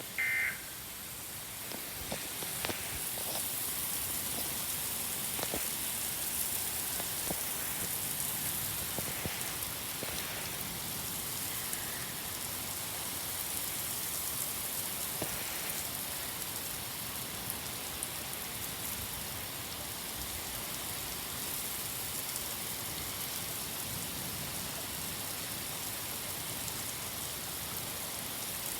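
Steady rain falling, with scattered drops ticking on a hard surface. A short electronic tone sounds at the very start.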